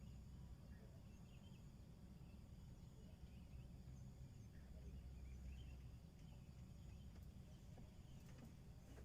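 Near silence: a low steady rumble, with faint short chirps scattered through it.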